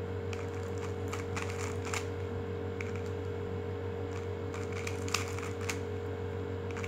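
Stickerless 3x3 speedcube turned quickly by hand through a nine-move algorithm, its plastic layers clicking and clacking in quick bursts of turns with short pauses between, over a steady low hum.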